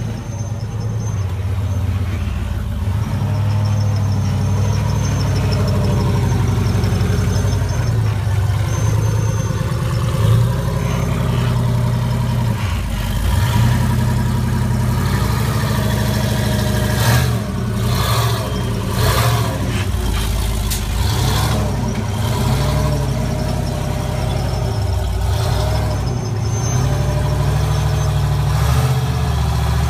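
Rock-crawling buggy's engine running at low speed and revving up and down in bursts as it crawls over boulders, with a few sharp knocks a little past halfway.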